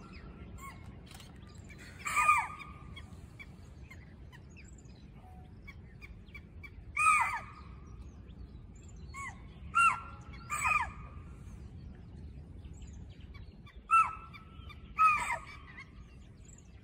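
Spotted deer giving sharp alarm calls at a leopard: short shrill barks, each rising then falling in pitch, repeated every few seconds and sometimes two in quick succession.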